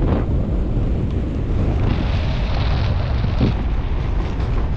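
Airflow in paragliding flight rushing and buffeting over the microphone: a loud, steady wind noise.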